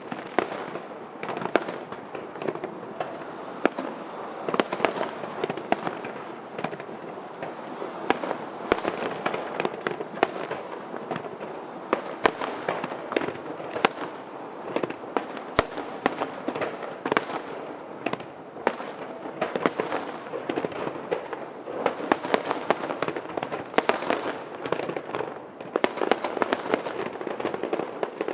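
Aerial firework shells bursting in rapid, irregular succession: many sharp bangs and pops over a continuous crackle.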